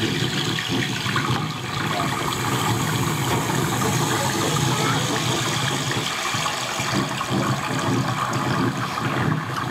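Playback of a recording of water being poured, pitched up and compressed to sound loud, heard as a steady rushing splash meant as rain.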